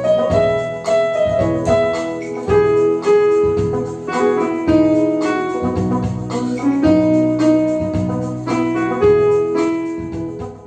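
Electronic keyboard playing a melody over sustained chords in a piano-like voice, fading out near the end.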